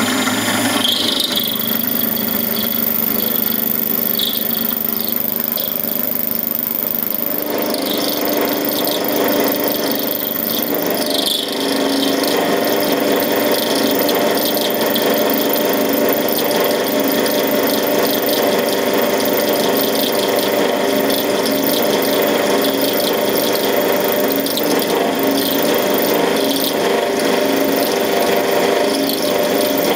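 D180-300V mini lathe spinning an end mill held in its chuck while it cuts an aluminium round bar in a milling attachment: a steady motor whine under a continuous rough grinding rattle of the cut, which grows louder about seven seconds in.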